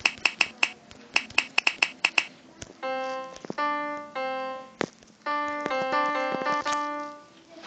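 A fast, uneven run of finger snaps for about two seconds, then a short electric-piano phrase: a few single held notes followed by sustained chords that fade near the end.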